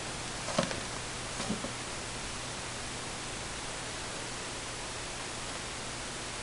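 Steady hiss of recording noise, with a few soft taps or knocks about half a second and a second and a half in.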